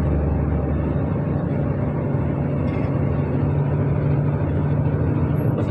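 Laden lorry's diesel engine running steadily at highway speed, heard from inside the cab together with road noise: a continuous low drone.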